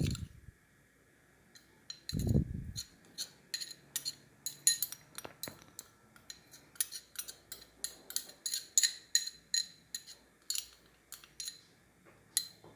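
A spoon clinking and tapping against a mixing bowl over and over, several quick clinks a second, as spoonfuls of cocoa powder are measured into flour. Two dull thumps come near the start.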